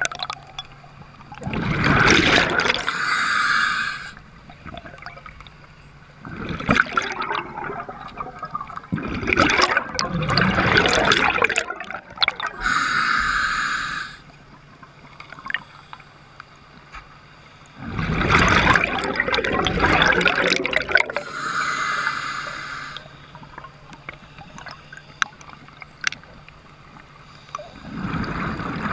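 Scuba diver breathing through a regulator underwater: a short steady hiss of inhaled air, then a longer gurgling rush of exhaled bubbles, repeating in slow cycles about nine seconds apart.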